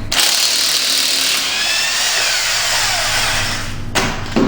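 Air-driven power tool, an impact wrench spinning off the wheel's lug nuts, running as a loud airy hiss for about four seconds. A faint whine falls in pitch midway, and the sound cuts off abruptly.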